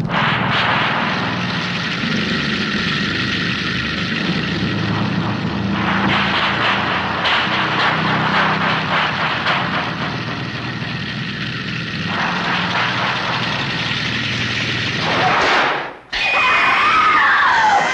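A motor running with a steady low drone, its sound changing abruptly several times. Near the end it breaks off and gives way to high wavering screams.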